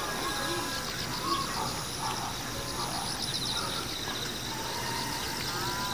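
Outdoor ambience of insects chirping in quick repeated pulse trains, with a thin steady high insect tone and scattered bird calls over it.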